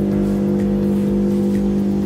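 Keropok lekor rolling machine running: a steady electric motor and conveyor hum, with a faint light tick about once a second.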